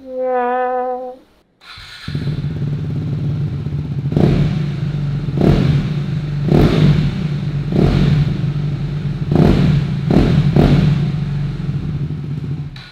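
A short held musical note, then a KTM Duke 390's single-cylinder engine, fitted with an Akrapovič slip-on exhaust with the dB killer removed, starts about two seconds in and idles. It is revved in about seven sharp throttle blips, with a crisp exhaust note.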